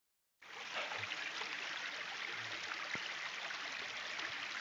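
Shallow rocky creek running: a steady rush of water that starts abruptly about half a second in.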